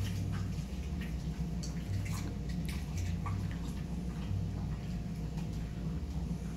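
Dog eating, wet smacking and chewing clicks at irregular intervals over a steady low hum.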